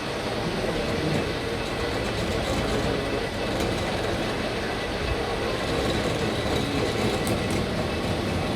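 Steady, dense mechanical running noise of workshop machinery, with a faint steady high whine and a few light ticks near the end.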